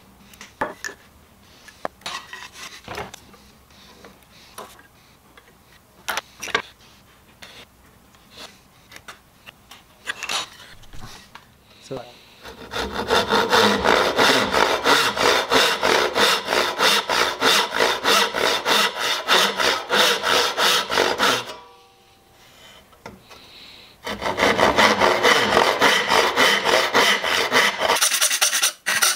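A dovetail saw cutting dovetail tails by hand into a hardwood board. For the first dozen seconds there are only a few scattered light knocks and clicks. Then come quick, even push-and-pull saw strokes, about four or five a second, for some nine seconds; after a short pause a second run of strokes stops near the end.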